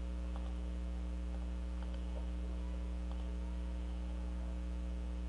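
Steady low electrical mains hum picked up by the recording microphone, with a few faint clicks.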